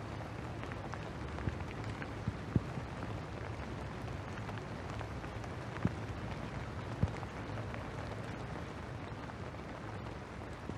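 Steady outdoor rain falling on wet pavement, with a few faint scattered clicks from drops.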